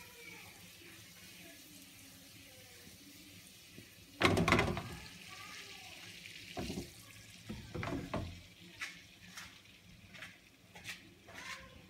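Hot fat and browned bits sizzling in a frying pan on a gas stove. A loud clatter of the pan shifted on the metal grate comes about four seconds in, followed by lighter knocks and clicks.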